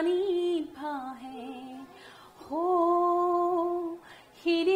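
A woman singing a slow Assamese song unaccompanied, phrase by phrase with short breaths between, holding one long steady note about halfway through.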